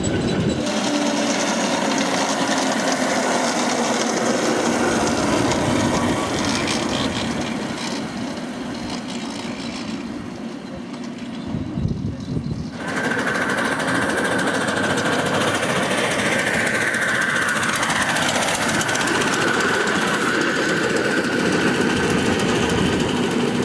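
Miniature ride-on railway train running along the track, wheels clattering over the rails. In the second half a steady high whine runs through it.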